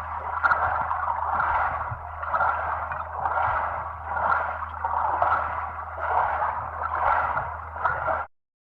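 Underwater ambience: water noise swelling and fading about once a second over a low steady hum, cutting off suddenly near the end.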